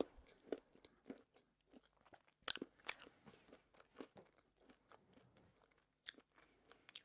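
Close-miked chewing of a mouthful of marbled sponge cake: soft, wet mouth clicks, with a louder cluster of clicks about two and a half to three seconds in.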